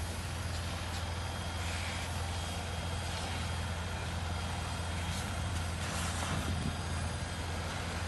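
An engine running steadily, a constant low hum, with an even hiss over it.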